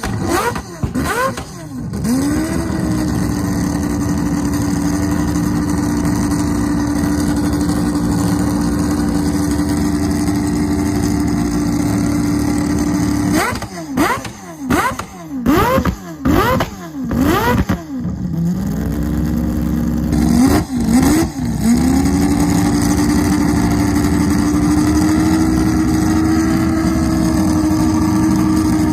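Mazda 767B's four-rotor rotary racing engine idling at a high, steady pitch, blipped sharply twice just after the start, then in a rapid string of about six revs through the middle, and twice more a few seconds later before settling back to idle.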